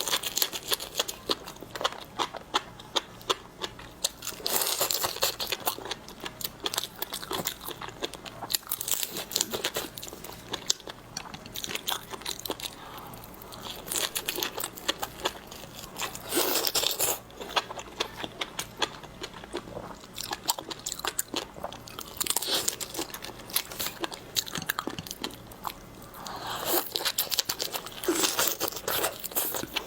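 Close-miked eating of seafood: a steady run of crunching and wet chewing clicks, rising into louder crunching bites every few seconds.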